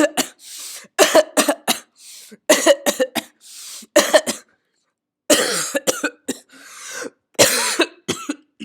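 A person fake-coughing over and over in quick clusters of several coughs each, with short pauses between the clusters.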